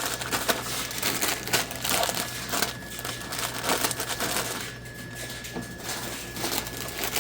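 Chip bags crinkling and rustling irregularly as they are handled and loaded into a vending machine's spiral coil.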